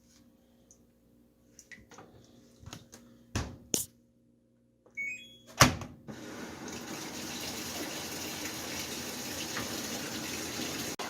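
Washing machine: a few clicks and knocks with a short run of rising electronic beeps and a sharp knock, then, about six seconds in, water starts pouring steadily into the drum as it fills.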